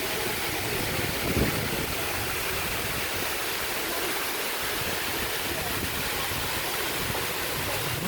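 Amicalola Falls' water cascading, a steady even rush of noise. A brief low thump comes about a second and a half in.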